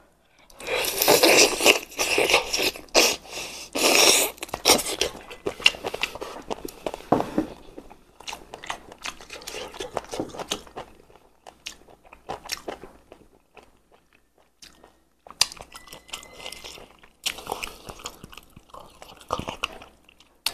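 Close-up eating sounds of red-braised chicken heads: loud sucking and slurping with crunching for the first four seconds or so, then a long run of quieter chewing and crunching, with a short lull near the middle.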